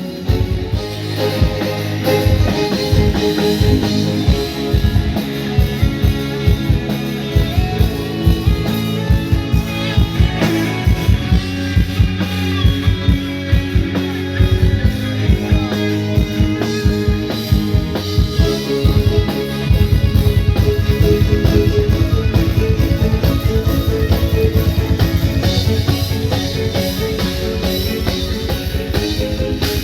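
Live rock band playing, led by drum kit and electric guitar. About twenty seconds in, the drumming changes to a fast, continuous run of low kick-drum beats.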